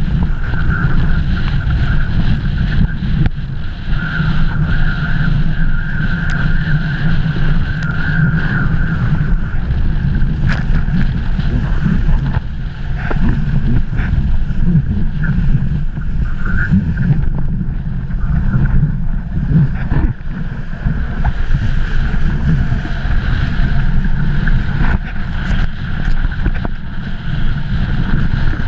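Strong wind buffeting the action camera's microphone while kiteboarding over choppy water, a loud steady rumbling rush with the hiss of the board and spray on the water. A higher steady hum strengthens from about four seconds in and eases off around nine seconds.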